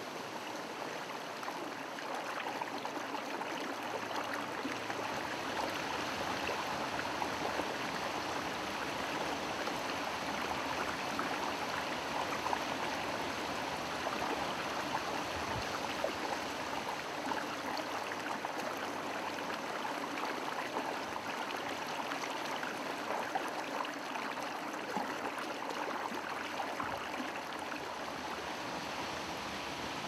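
A mountain torrent rushing, a steady, even sound of flowing water.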